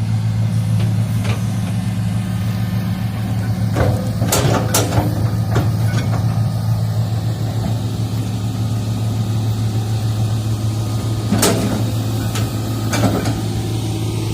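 Excavator's diesel engine running steadily with a deep hum, with a few sharp knocks about four seconds in and again near the end.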